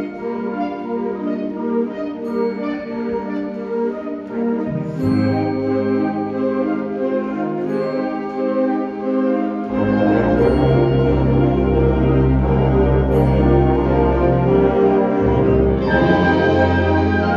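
School concert band playing a wind arrangement, with woodwinds, saxophones and brass including tubas. Low bass notes come in about five seconds in, and the full band swells louder about ten seconds in.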